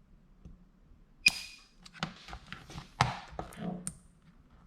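Spot welding pen on a PCB spot welder firing onto a fuse: a sharp crack about a second in, then several lighter clicks and taps. The pulse blows out the fuse.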